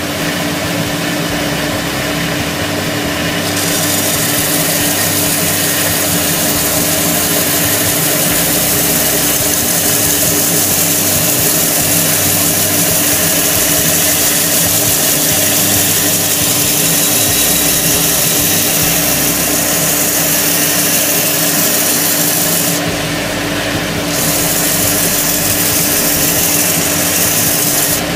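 Bench-mounted vertical belt sander running with a steady motor hum while a wooden ukulele neck block is swung against the belt in a jig to sand a radius. The hiss of the abrasive belt on the wood starts a few seconds in and breaks off briefly near the end.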